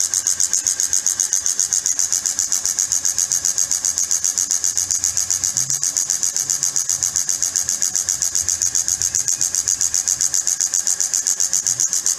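Timken oil friction tester running: its steel test ring turning against the weight-loaded test block under oil, giving a steady high hiss that pulses rapidly and evenly, with a faint low hum beneath.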